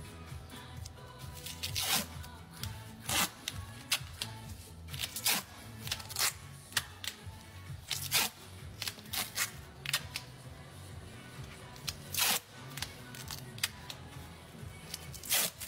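Duct tape being pulled off the roll and wrapped around a horse's hoof: a series of short, irregular rips, over background music.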